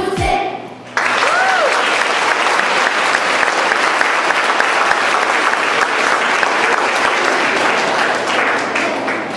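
Audience applause breaking out about a second in, just after the song ends, and continuing steadily, with one brief rising-and-falling call from the crowd near the start.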